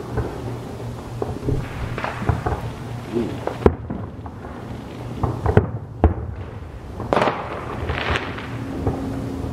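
Aerial fireworks shells bursting: an irregular run of sharp bangs, several in quick succession, with crackling between them.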